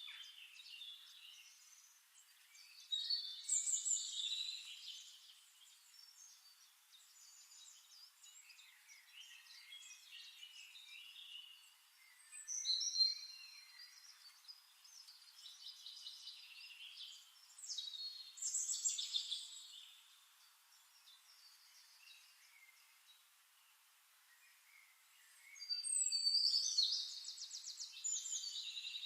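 Songbirds singing: short high-pitched phrases of chirps and warbles that come every few seconds. The loudest is a rapid trill near the end.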